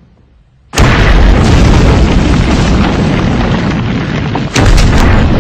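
Sound effect of a pyramid blowing up: a brief hush, then a loud explosion breaks about a second in and carries on as a heavy rumble, with a second blast near the end.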